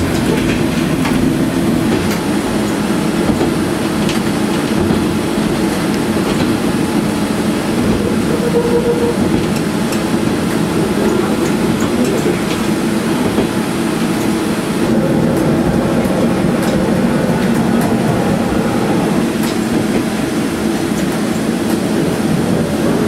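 KiHa 47 diesel railcar running along the line: a steady engine drone with the rumble of wheels on the track and occasional clicks of rail joints.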